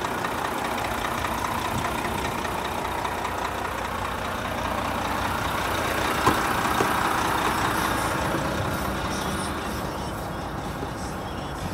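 Renault T460 truck's 11-litre six-cylinder diesel idling steadily, a little louder about halfway through and quieter near the end. A single sharp click about six seconds in.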